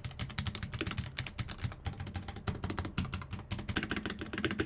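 Fast, continuous typing on a custom-built tenkeyless mechanical keyboard assembled on a Genesis 8K TKL hot-swap PCB, a dense run of key clacks.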